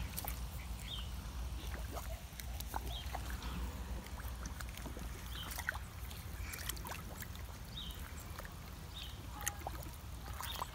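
A pig snuffling and slurping with its snout in a muddy, hose-fed puddle, with small wet clicks and splashes. Under it runs a steady low rumble, and short high chirps come every second or two.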